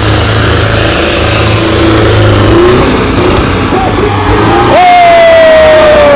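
Engines of modified show tractors running hard at high revs while the tractors spin donuts, very loud. About two thirds of the way in a strong held tone starts and slowly slides lower in pitch.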